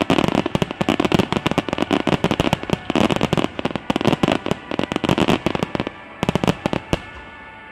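Fireworks climax barrage: a dense run of bangs and crackling, many bursts a second, thinning out and stopping about seven seconds in, leaving music.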